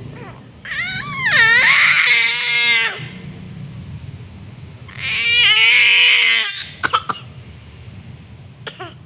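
A child screaming in two long, high-pitched shrieks that bend up and down in pitch, followed by a few short coughs from the strain of screaming.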